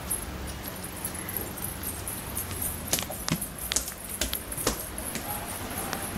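Footsteps on a concrete floor: light, uneven clicks and taps, most of them between about three and five seconds in, over a steady hiss.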